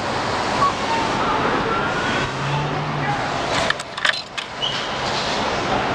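Steady street traffic noise, with a quick cluster of sharp clicks and rattles about four seconds in.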